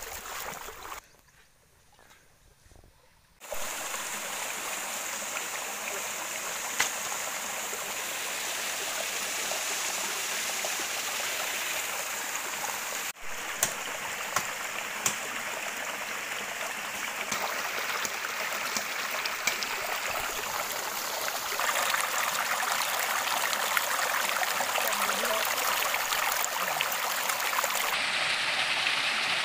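Water rushing steadily over a small waterfall. A short near-quiet gap comes about a second in, and the rush changes in tone abruptly twice later on.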